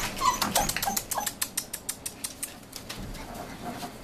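Sheepadoodle puppies giving a few short, high whimpers in the first second or so, with quick scratching and rustling of paws on newspaper over a tile floor that dies down about halfway through.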